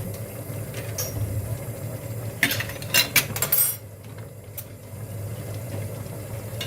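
Metal utensil clinking against glass jars as hot lecho is ladled into sterilised jars for canning, with a quick cluster of sharp clinks around the middle, over a steady low background hum.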